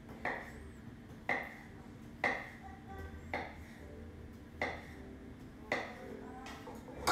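Kitchen knife slicing hot cooked small potatoes, skin on, on a wooden cutting board: a sharp tap of the blade on the board about once a second.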